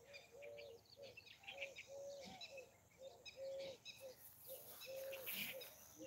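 Faint birdsong: a low cooing note repeated over and over at an uneven pace, some notes drawn out, with quick high chirps from smaller birds.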